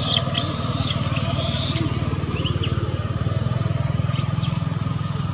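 An engine running steadily, a low pulsing rumble, with a steady insect drone and a few brief high chirps over it.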